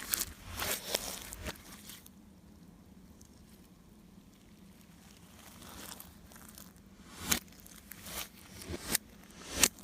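Slime being handled and mixed: sticky crackles and clicks in short bursts, a quiet stretch of a few seconds in the middle, then scattered sharp pops.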